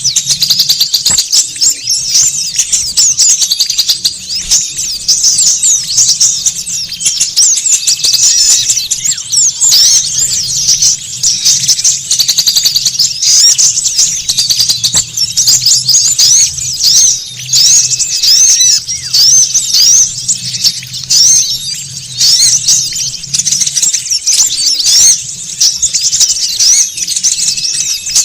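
Recorded lure call of many small birds chirping and twittering at once, a dense, noisy chorus of rapid high calls with no break, of the kind played to draw small wild birds in. A faint low hum runs underneath.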